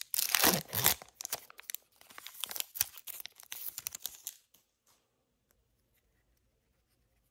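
Foil trading-card pack wrapper being torn open and crinkled: a dense crackling and ripping that stops about four and a half seconds in.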